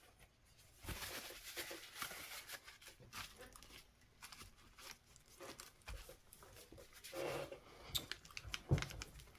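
Paper and fabric being handled: soft rustling and crinkling with scattered light taps, and a single soft knock near the end.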